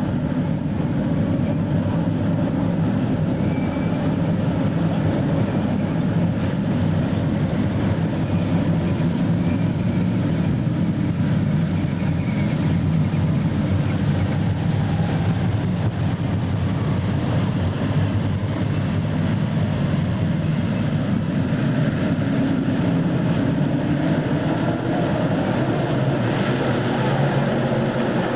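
A field of dirt modified race cars' V8 engines running together in a steady, dense drone.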